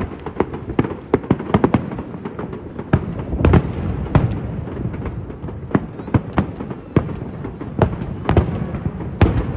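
Aerial fireworks display: shells bursting in quick, irregular succession, dozens of sharp bangs over a continuous rumble, starting with a sudden bang.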